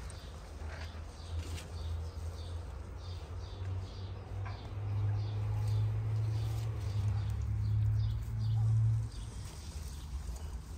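Faint birds chirping again and again over a low steady rumble. The rumble swells in the middle and cuts off suddenly near the end.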